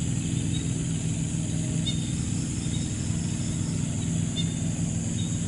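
A small engine running steadily at an even speed, with short high chirps about every two seconds over a steady high hiss.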